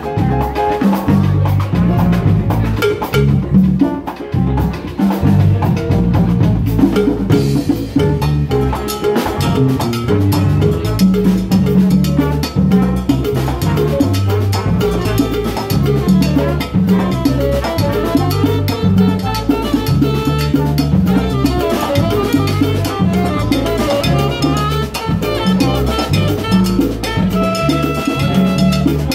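Live salsa band playing an instrumental stretch with no singing: a steady, repeating bass line and conga and drum groove. Near the end the horns hold long notes over it.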